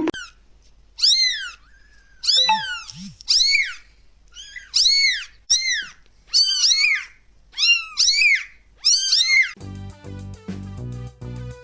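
A cat meowing over and over, about eight high-pitched calls, each rising then falling in pitch. Background music comes in near the end.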